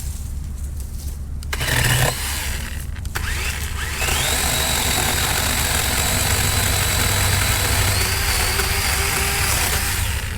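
DeWalt 20V cordless electric chainsaw after a brief burst about two seconds in: the motor spins up with a rising whine, then runs at a steady high pitch for about six seconds and stops near the end.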